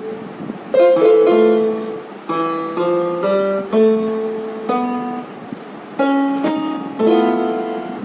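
Casio CTK-2550 portable electronic keyboard being played: a slow tune of single notes and small chords, about one or two new notes a second, each struck and then fading away.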